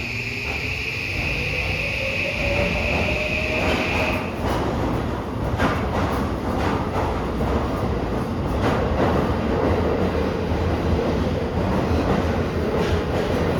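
Subway electric train pulling away from the platform: a rising motor whine in the first few seconds, then louder running rumble with wheels clicking over rail joints as it picks up speed.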